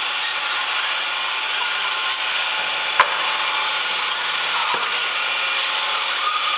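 Electric screw-type cold-press oil expeller running steadily as it presses oilseed through its screw, with a single sharp click about three seconds in.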